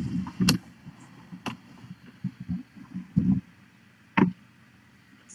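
Newborn kittens shuffling and squirming in blanket bedding: scattered soft thumps and rustles with a few sharp clicks, the loudest about half a second in and just after three seconds.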